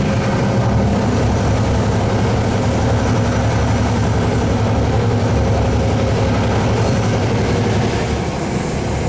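Clyde-built Da class diesel-electric locomotive working steadily under load as it hauls the train, its engine throb mixed with the rumble of the moving train.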